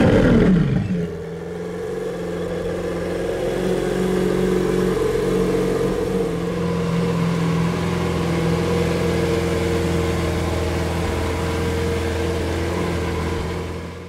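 Lamborghini Aventador S's 6.5-litre V12 falling back from a rev in the first second, then idling steadily.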